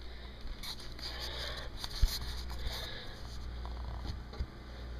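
Faint rustling and handling noise with a light knock about two seconds in and another near the end, as a drinking glass is taken from a kitchen cabinet.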